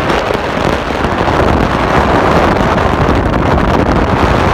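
Wind buffeting a phone's microphone held out of the window of a moving car, a loud steady rush mixed with the car's road noise.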